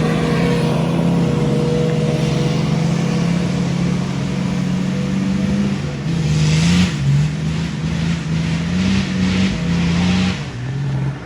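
Off-road vehicle engine running under load, holding a steady note, then rising and falling in revs from about six seconds in, with several short bursts of hissing noise over it.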